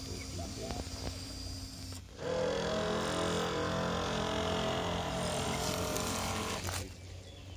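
Radio-controlled model landing craft's drive running steadily as it moves off across the water, a hum with several steady tones. It starts suddenly about two seconds in and stops suddenly near the end, after a quieter outdoor background with faint chirps.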